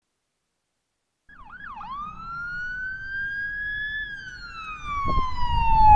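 Emergency vehicle siren starting about a second in: two quick yelps, then one slow wail that rises and then falls, over a low rumble that grows louder near the end.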